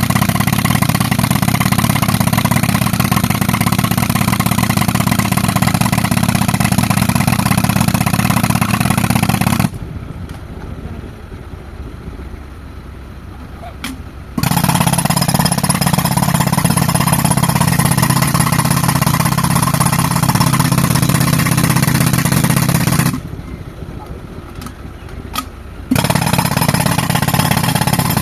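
Pneumatic rock breaker, fed by a tractor-driven air compressor, hammering on a boulder in three long runs. It stops abruptly about ten seconds in and again near the end, each time for a few seconds, while a quieter engine sound carries on underneath.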